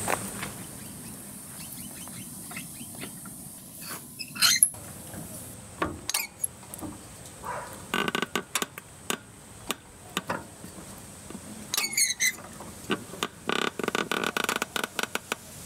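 High-lift jack working with irregular sharp clicks and clacks as its handle is pumped, the foot pressing a wooden plate down on the tyre sidewall to break the tyre bead away from the rim. The clicks come in bursts, busiest in the last few seconds.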